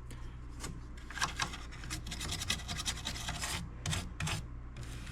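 Short, uneven scrubbing strokes on a circuit board wet with alcohol, working loose the grime and small particles.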